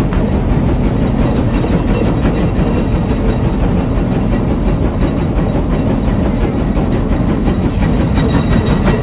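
The 150 Case steam traction engine on the move: a steady, loud mechanical rumble and clatter of the engine and gearing as its giant riveted steel drive wheel rolls over the ground.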